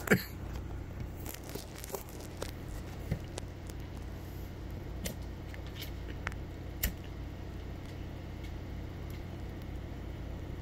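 A sharp knock, then scattered light clicks and crackles over a steady low hum, as a hand pipe is handled close to the phone and lit.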